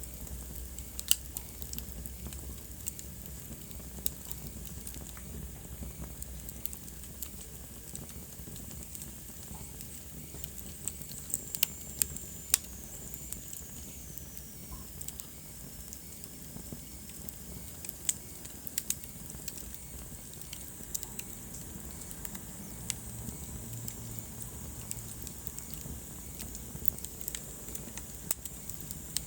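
Wood fire in a fireplace crackling, with scattered sharp pops over a steady hiss and low rumble. Around the middle, a faint high whistle slides down in pitch.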